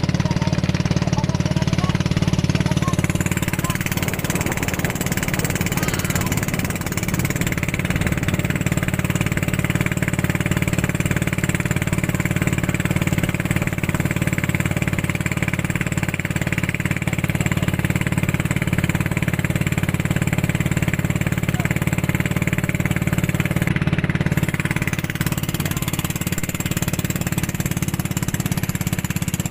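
Towing motorboat's engine running steadily at speed: a low, even drone with a fast pulse, under a steady hiss.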